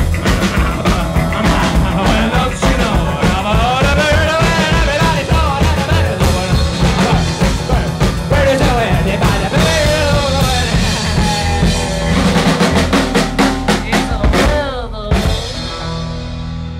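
Live rockabilly trio playing: hollow-body electric guitar, upright bass and drum kit. Near the end comes a run of quick drum hits, then the song closes on a final hit that rings out.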